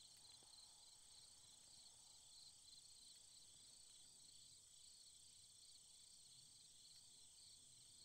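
Near silence, with a faint, steady chorus of crickets trilling in an even, high-pitched pulse.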